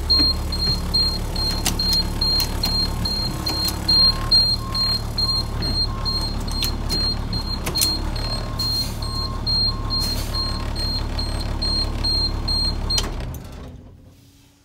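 Blue Bird school bus diesel engine idling, with a rapid high-pitched beeping of about four beeps a second and a few clicks. About 13 seconds in the engine is shut off: the running sound and the beeping stop and the sound dies away.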